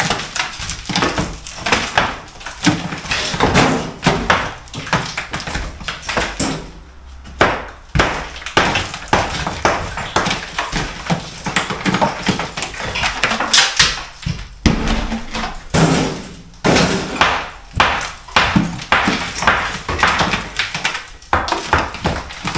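Crumbly old brickwork being taken down by hand: loose bricks pulled off a pier and dropped, a run of knocks, scrapes and clattering brick and mortar rubble, with a short lull about seven seconds in.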